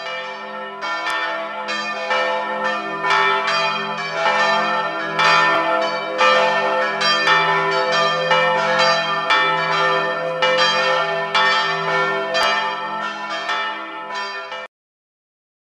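Several church bells ringing together in a peal, their strikes overlapping with long ringing overtones over a steady low hum. The ringing cuts off abruptly near the end.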